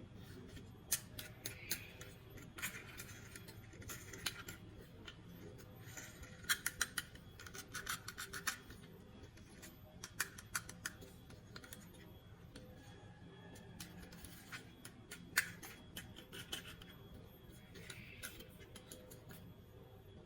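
Toy packaging and a plastic toy being handled and opened: scattered sharp clicks and short rustles, busiest about a third of the way in.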